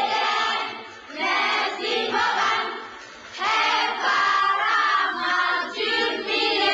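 A class of schoolchildren singing together in a choir, in three sustained phrases with short breaks about a second and about three seconds in.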